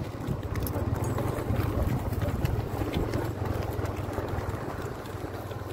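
Horses' hooves clopping faintly on a dirt track over a steady low rumble.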